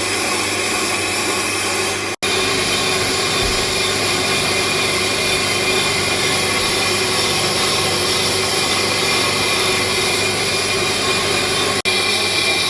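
Brake lathe running steadily while it machines (refaces) a brake rotor, the cutting tool skimming the disc surface. The sound drops out for an instant twice.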